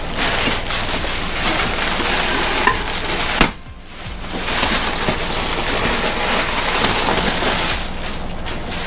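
Packaging crackling and rustling as a new wheelset is unwrapped, with one sharp snap about three and a half seconds in and a brief lull after it.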